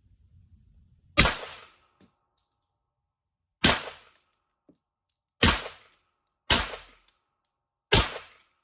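HK VP9 9mm pistol fired five times at an unhurried, uneven pace, each shot a sharp crack with a short ring-out.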